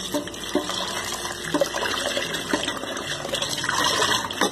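Kitchen tap running into a plastic bowl while hands rinse and rub dried salted fish in the water, with small knocks against the bowl and steel sink. A sharper knock comes right at the end.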